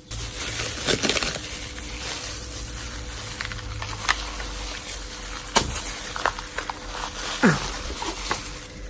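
Kitchenware being handled, likely the steeping tea being covered with a lid: scattered light clicks and one sharp knock a little past halfway, then a short scrape falling in pitch near the end, over a steady hiss.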